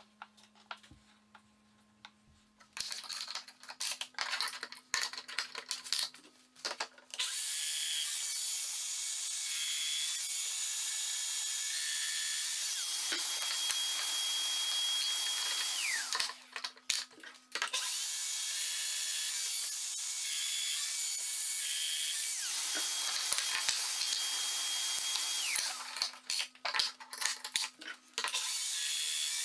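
A handheld power tool's motor runs in two long steady stretches of about eight and five seconds, each winding down with a falling whine. Light knocks and clicks of wood pieces and bench clamps come between the runs, and the motor starts again near the end.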